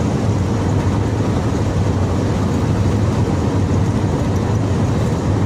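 Steady road noise inside a moving vehicle's cabin at highway speed, with a constant low drone.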